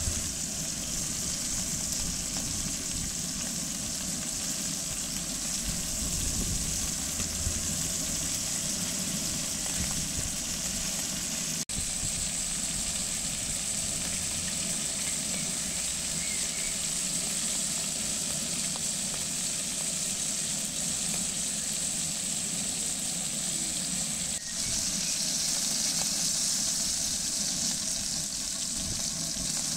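Beef rolls sizzling as they fry in bubbling fat in a pan, a steady hiss.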